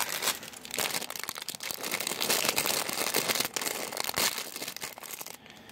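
A plastic bag of Lego pieces crinkling as it is handled and opened: a dense, crackly rustle full of small clicks, with a couple of brief gaps.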